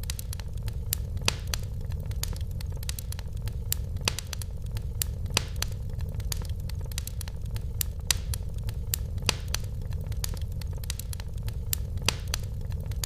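Wood fire in a fireplace crackling, with sharp irregular pops over a steady low rumble of the flames.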